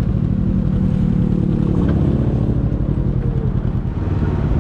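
Can-Am Ryker three-wheeler's engine running steadily under way, its pitch dipping a little about three and a half seconds in.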